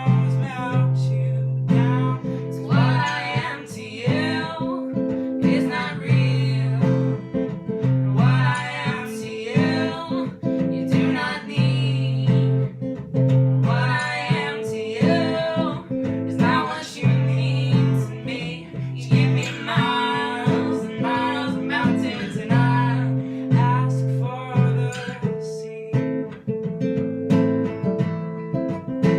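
Acoustic guitar playing a song with a voice singing over it.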